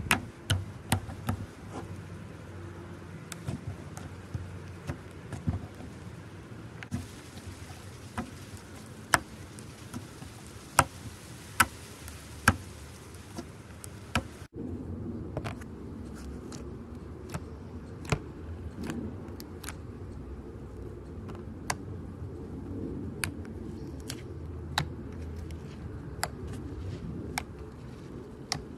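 Hands squeezing and poking glossy slime, giving sharp wet clicks and pops from air pockets. The loudest pops come about 9 to 12 seconds in. About halfway through, the sound cuts to softer, fluffy slime being pressed in a plastic tub, with quieter, more frequent crackles and pops.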